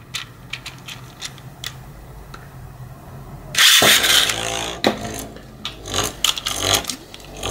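Plastic clicks as a Beyblade (Emperor Forneus) is fitted to a red launcher, then a loud ripping whir about halfway through as it is launched into a plastic stadium. The top then spins on the stadium floor with light clicks.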